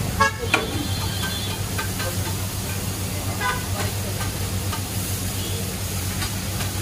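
Burger patties frying on a large flat griddle: a steady sizzle over a constant low hum, with two sharp knocks about a quarter and half a second in.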